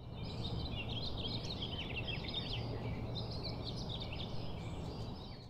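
Songbirds chirping and twittering in quick overlapping calls over a steady low background noise, a nature ambience that fades out at the end.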